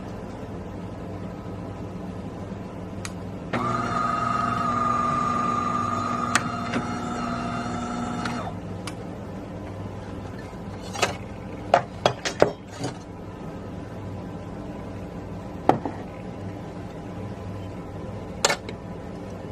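A small electric motor whirs at a steady pitch for about five seconds over a low steady hum, then a few sharp clicks and knocks follow.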